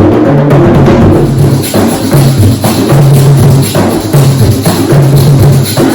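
Percussion-heavy music: drums with a steady high jingling, over a repeating low bass figure of short held notes.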